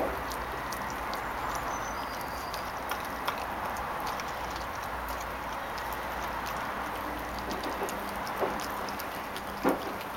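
Yellow Labrador puppy chewing and gnawing a raw chicken leg: scattered short clicks and crunches from teeth on bone, the loudest a little before the end, over a steady low background hum.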